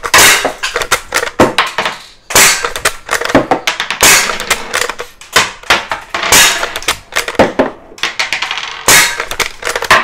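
Umarex Legends Cowboy lever-action CO2 BB rifle fired rapidly, about five sharp shots roughly two seconds apart. Between the shots come quicker metallic clicks and clacks as the lever is worked to eject the shell and chamber the next one.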